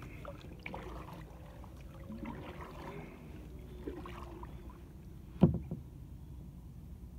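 Kayak paddle strokes in the water, backpaddling, with small splashes and drips, and one sharp knock about five and a half seconds in.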